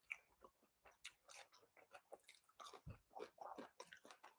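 Faint chewing and mouth clicks of someone eating hot chips: an irregular run of short soft smacks, with a soft low bump about three seconds in.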